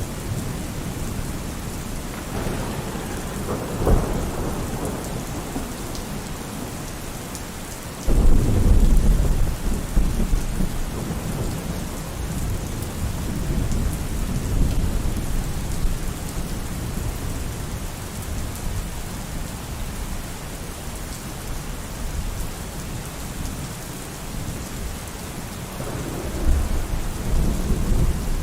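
Steady heavy rain with thunder: a rumble about four seconds in, a sudden loud thunderclap about eight seconds in that rolls on for several seconds, and another rumble near the end.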